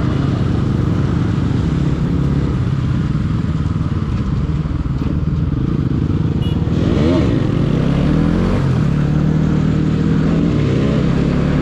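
Bajaj Pulsar NS200's single-cylinder engine running while riding, the pitch swinging up and down a couple of times around the middle as the revs change.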